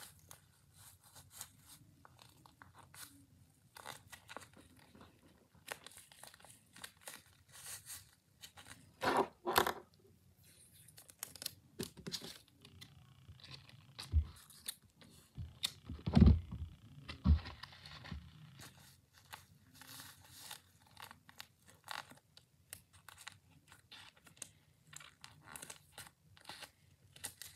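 Paper crinkling and rustling as a stuffed paper craft is handled, with scattered crackles throughout. There are two louder bursts of crackling, one about a third of the way in and one a little past halfway, the second with a few low bumps.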